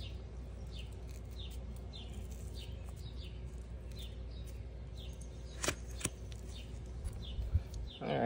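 A small bird chirping over and over, short falling chirps about twice a second, which stop about five seconds in. Two sharp clicks follow about a second later, over a steady low rumble.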